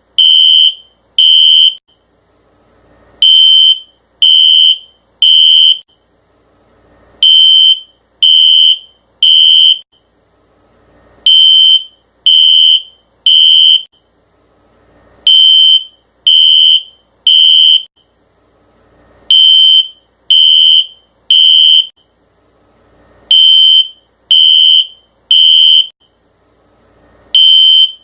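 Fire alarm sounding a loud, high beep in the temporal-three pattern: three beeps about a second apart, then a pause, the cycle repeating every four seconds. This is the standard evacuation signal.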